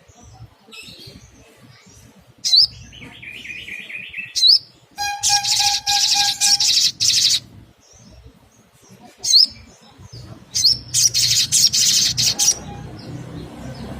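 Sunbird calls: sharp high chirps and short rising flicks, a buzzy trill about three seconds in, and bursts of fast high twittering about five and eleven seconds in, with short quiet gaps between the phrases.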